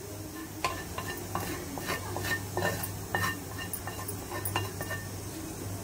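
A spoon scraping and tapping against a pan as fried chutney is scooped out onto a plate: a string of short, irregular scrapes and clinks.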